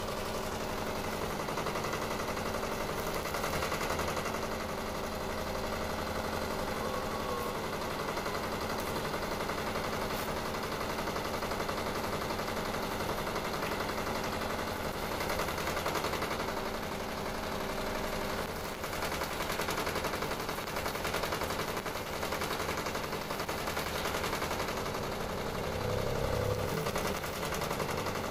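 Continuous crackling and sizzling of electric arc (stick) welding on steel, steady in level, with a faint hum beneath.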